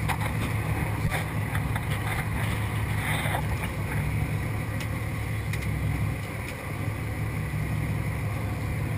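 A charter boat's engine running with a steady low drone, with a few light knocks on deck.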